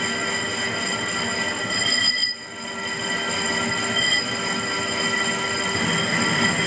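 Metal lathe turning the outside diameter of a large plate gear blank. The tool's cut gives a steady, high-pitched metallic ringing squeal over the machine noise. The sound dips briefly about two seconds in, then builds back.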